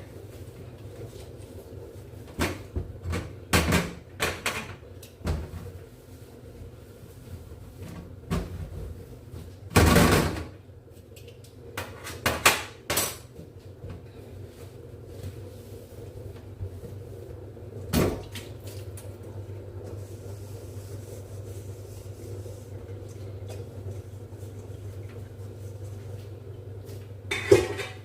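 Scattered knocks and clatters of kitchen things being handled, like cupboard doors and pots or dishes, over a steady low hum.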